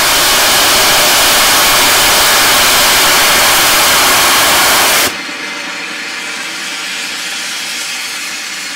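Steam blowing off with a loud hiss from the standing Orenstein & Koppel 0-4-0 tank engine O&K No. 1, which drops suddenly to a quieter hiss about five seconds in.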